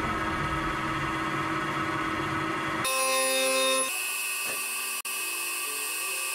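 Milling machine with tungsten carbide cutters face-milling the bed of a hardened chrome-nickel steel anvil, giving a steady rough cutting noise. About three seconds in the sound changes to a steadier whine of several tones.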